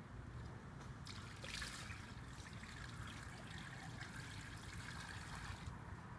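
Faint trickling of water from a running garden hose into a small plastic bin and onto asphalt, with the bin tipped to pour its water out.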